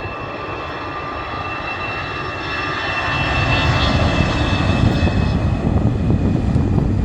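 Jet airliner's engines passing close: a steady whine of several high tones over a deep rumble that swells about halfway through and grows loud.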